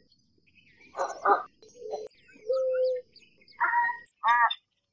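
American white ibises calling: about half a dozen short calls with pauses between, one held longer and steadier near the middle.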